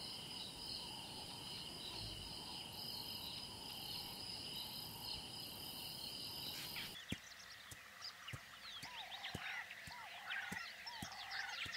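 Faint outdoor insect chorus, a steady high trill. About seven seconds in the ambience changes to a rhythmic short call repeating about twice a second, with scattered bird chirps and a few soft clicks.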